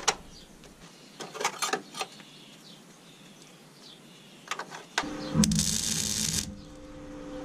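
A few light metal clicks and taps, then about five seconds in an arc welder, most likely a MIG, crackles for about a second as it lays a weld on the car's steel bodywork, with the welder's low steady hum carrying on after the arc stops.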